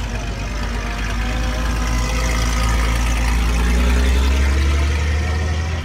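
Engines of light military four-wheel-drive vehicles driving past close by, one after another; the low engine note grows louder to a peak about four seconds in.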